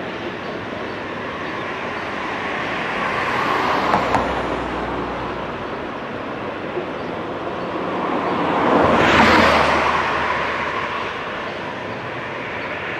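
Two vehicles pass by, each swelling up and fading away: one about four seconds in, and a louder one about nine seconds in. A steady rushing noise runs underneath.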